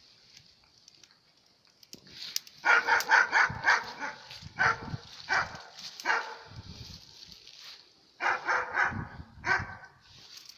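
Small terrier barking: after a quiet start, a quick string of barks about two seconds in, a few single barks, then another quick string near the end.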